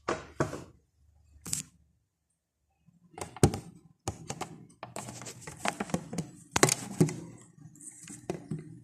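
Irregular knocks, clicks and scrapes of kitchen utensils and bowl on the counter and plastic cutting board, with the phone handled and moved; the clatter is densest from about three seconds in.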